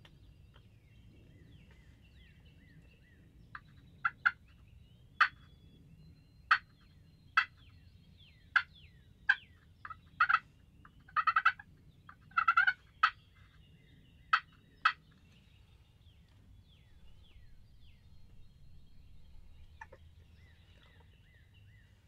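Wild turkeys calling: a string of short, sharp calls, single or in quick clusters, starting a few seconds in and stopping about two-thirds of the way through. Faint songbirds chirp in the background.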